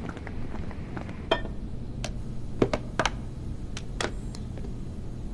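A handful of short, sharp clicks and knocks at uneven intervals over a low steady room hum.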